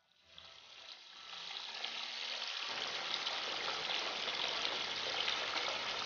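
Water spraying from a hose into a pickling vat, a steady hiss that swells over the first second or so and then holds. The salted vegetables are being soaked to draw out the salt.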